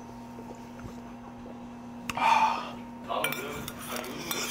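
Spoons and chopsticks clinking against bowls and dishes on a table, with a sharp click and a louder clatter about two seconds in, then a run of small clinks.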